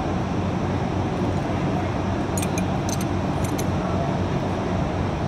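Steady low hum of shop machinery, with a handful of light metal clinks from hand tools working the rocker arms of a Mack diesel engine's valve train, about two and a half to three and a half seconds in.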